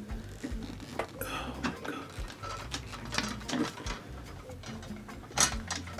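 Irregular clicking and knocking of enclosure frame rods and corner connectors being handled and pushed together, with a sharper knock near the end.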